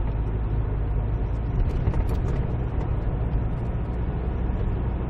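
Steady low drone of a 2002 Kia Sorento driving along, its engine and road noise heard from inside the cabin.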